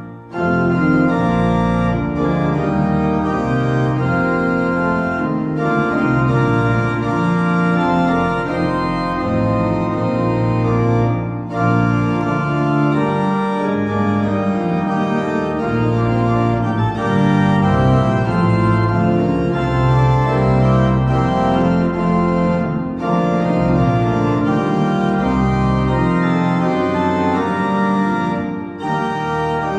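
Eisenbarth pipe organ played loud and full: sustained chords over a moving pedal bass, with a few brief breaks between phrases.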